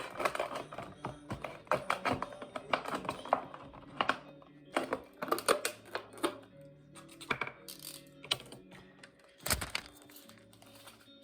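A rapid, irregular run of light clicks and taps over quiet background music, with one deeper thud about nine and a half seconds in.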